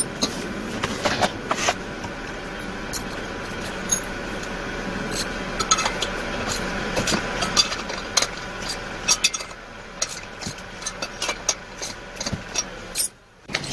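Irregular clicks and clinks of hand tools and metal parts as a backpack engine blower is reassembled, nuts being fitted and tightened with a socket wrench, over a steady mechanical hum. The sound cuts off abruptly near the end.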